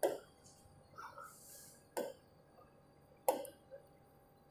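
Three faint taps of a fingertip on a large touchscreen board, short knocks one to two seconds apart.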